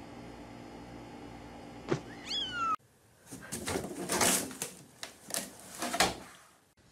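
A kitten gives one short meow, rising then falling, about two seconds in, over a steady low hum. After a cut comes a run of scrabbling, rustling and knocks as a cat scrambles into a laundry hamper, with the loudest knock near the end.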